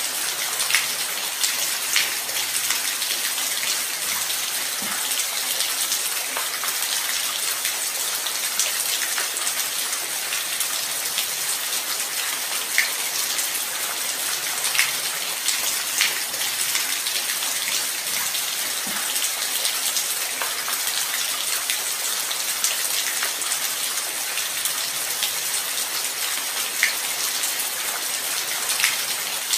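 Steady light rain: an even hiss of falling rain with scattered individual drops ticking sharply on a near surface.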